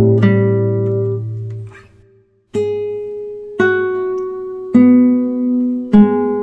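Acoustic guitar: a chord rings and dies away, a brief silence about two seconds in, then four new chords strummed about once a second.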